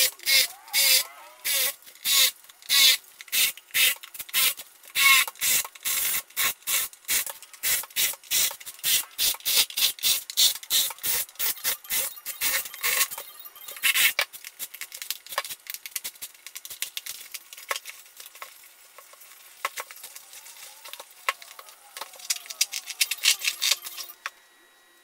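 Cordless drill/driver working out the fasteners around the edge of a motorcycle seat pan, in quick short rasping bursts about two to three a second. About halfway through the bursts thin out to scattered clicks and rasps, and they stop just before the end.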